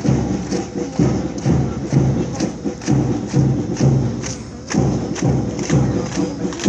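Parade drums beating a steady marching rhythm: a deep thump about twice a second with sharper strikes, easing off briefly about four and a half seconds in before picking up again.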